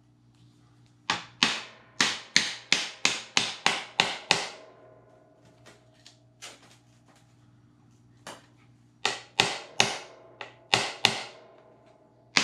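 Sharp taps of a hand tool on a scored glass plate, meant to run a crack along the cut line: a quick run of about ten taps at roughly three a second, a pause, then five more about nine seconds in.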